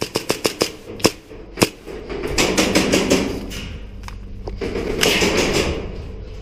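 Airsoft rifle firing a quick string of about six sharp shots, then two single shots. These are followed by two longer stretches of rapid clatter and noise.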